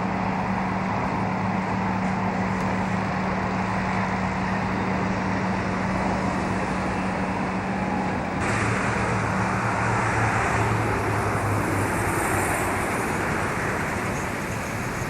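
Steady road noise of a motor vehicle on the move, with a constant low engine hum that drops to a lower pitch about nine seconds in; a brighter hiss joins shortly before.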